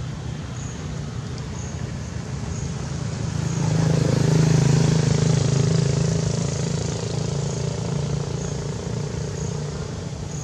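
A motor vehicle's engine passing by: a low hum that swells to its loudest about four seconds in, then fades slowly.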